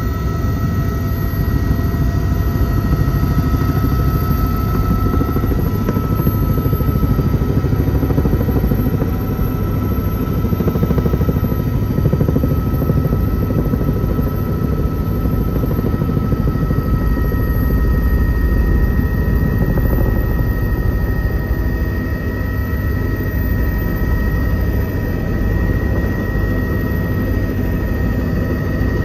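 Helicopter heard from inside the cabin: a steady, heavy rumble of rotor and engine with a few high whining tones over it, as the helicopter descends low over a field.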